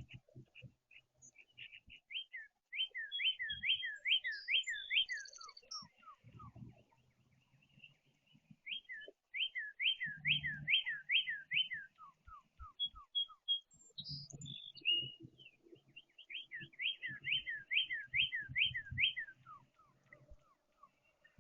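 A songbird singing loud whistled phrases three times, each a rapid series of about seven slurred, falling notes that end in a few lower ones. Soft low thumps sound underneath.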